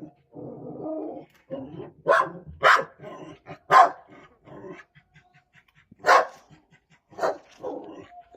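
Belgian Malinois barking: sharp single barks at uneven intervals, about five loud ones and a few softer ones, after a longer, lower sound in the first second.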